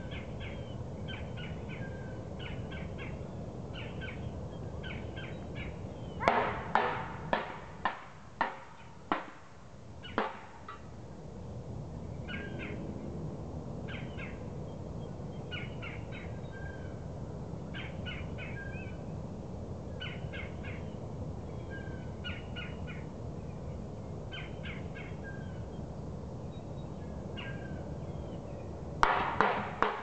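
Birds giving short, repeated calls in quick clusters throughout. There is a run of about eight loud, sharp knocks of a bird pecking on wood between about six and ten seconds in, and another burst of knocks starts near the end.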